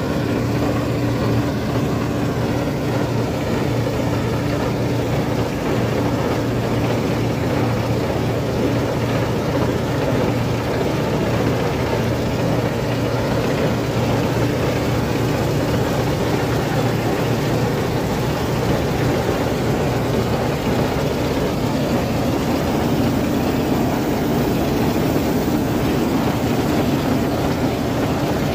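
Claas Dominator 48S combine harvester running steadily while harvesting wheat, its diesel engine and threshing machinery giving a continuous drone.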